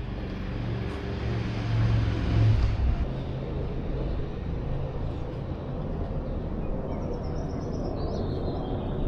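A motor vehicle's engine running close by, loudest about two seconds in, over street noise.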